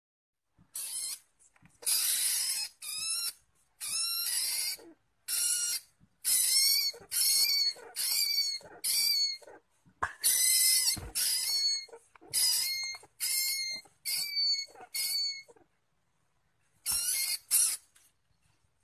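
A rat squealing shrilly over and over, about twenty short cries of under a second each with the pitch bending, as it stands its ground against a cat. The squeals come in a quick run, stop for a moment, and then come twice more near the end.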